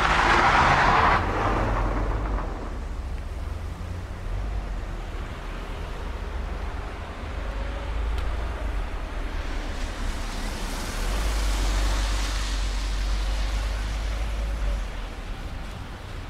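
Car driving across a concrete parking deck: a steady low engine rumble under tyre and wind noise. A loud rush comes in the first second as the car passes close, and the hiss swells again about ten seconds in.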